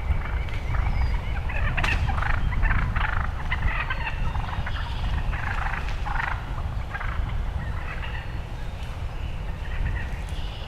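Young wild turkey gobblers (jakes) calling at very close range: a run of short, rough calls over the first seven seconds or so, over a steady low rumble.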